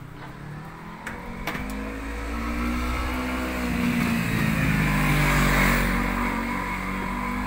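A motor vehicle passing on the street, its engine growing louder to a peak about five and a half seconds in, then fading. Two light clicks come just before it builds.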